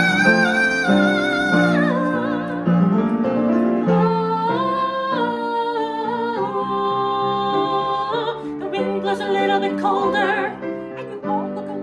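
A voice singing in an operatic style with strong vibrato on long held notes, over piano accompaniment.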